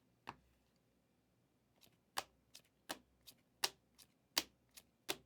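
Bowman Chrome trading cards being flicked through one at a time, each card giving a sharp click. After a single click near the start, a steady run of about two to three clicks a second begins about two seconds in.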